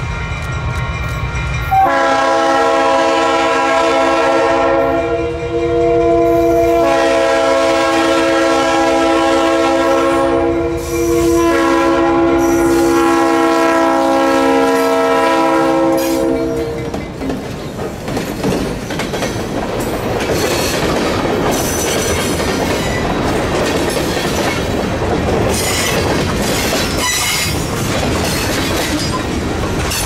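Leslie RS3L three-chime air horn on a Yorkrail EMD GP15-1 diesel locomotive sounding long blasts as the train passes, stopping about halfway through. Then the freight cars roll by with steady wheel-and-rail clatter and a light wheel squeal near the end.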